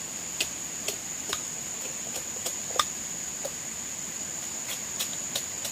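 A steady high-pitched drone, typical of insects, with a dozen or so sharp clicks and taps scattered at irregular intervals.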